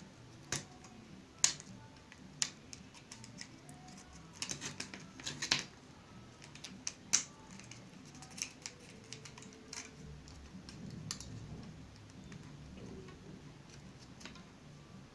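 Irregular light clicks and taps from handling a small balsa-stick model crossbow on a wooden table while stretching rubber bands onto it, with a small cluster of quick taps about five seconds in.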